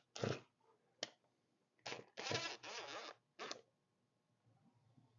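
Short, rasping scrapes of a hand tool working at the old screws set in a garden tractor's rubber rear tire. There are a few brief strokes, then a longer run of scraping about two seconds in.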